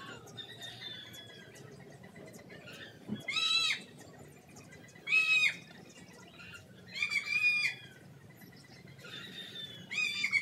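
Four loud, high-pitched animal calls, each about half a second long and rising then falling, about two seconds apart, the last near the end. Faint chirping runs underneath.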